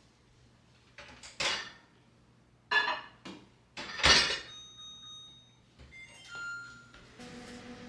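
Glass and ceramic kitchenware being handled and set down: a few sharp clinks and clatters, the loudest about four seconds in, two of them leaving a short clear ring. A steady low hum starts near the end.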